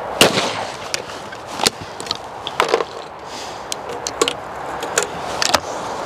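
One shotgun shot from an over-and-under (Blaser F16) just after the start, with a short echo. Then a series of lighter metallic clicks and clacks spread over the following seconds: the gun being broken open, spent cartridges ejected, fresh ones loaded and the action closed.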